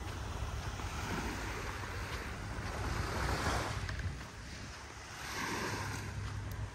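Surf washing onto a sandy beach, swelling and falling, with one wave rushing in about three seconds in and another near the end. Wind rumbles on the microphone.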